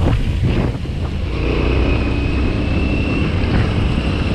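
Motorcycle running on the move, with heavy wind buffeting on the microphone; a steady whine comes in about a second and a half in.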